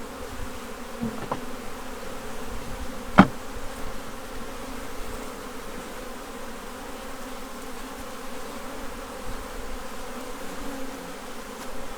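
A honey bee colony buzzing steadily around an opened hive during a frame inspection. One sharp knock about three seconds in, with a fainter click just before it.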